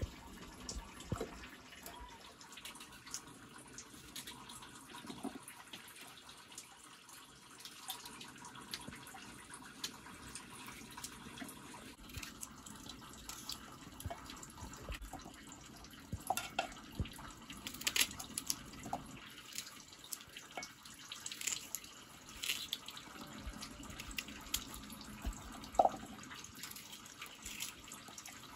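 Pots simmering and hissing over a crackling wood fire in a mud stove. From about halfway, potatoes are cut with a curved hand blade and the pieces drop into a steel pot, adding scattered sharp clicks and knocks.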